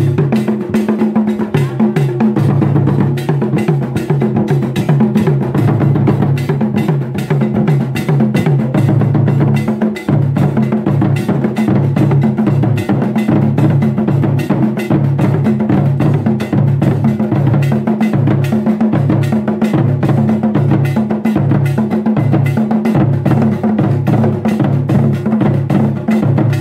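Traditional Ghanaian drum ensemble: two tall standing drums and a pair of shorter barrel drums beaten with sticks, playing a dense, steady rhythm of deep repeating strokes, with a brief break about ten seconds in.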